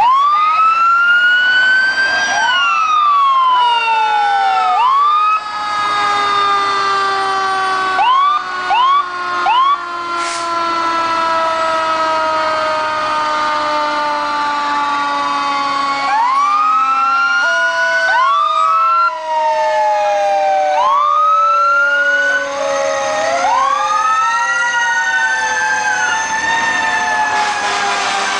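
Fire engine sirens from trucks passing in a parade, several sounding at once: each winds up quickly in pitch and then falls slowly over several seconds, with a run of short quick blips about eight to ten seconds in.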